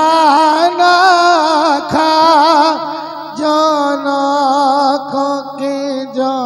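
A man chanting lines of a Punjabi devotional verse into a microphone. He sings in long, wavering held notes with short breaks between phrases.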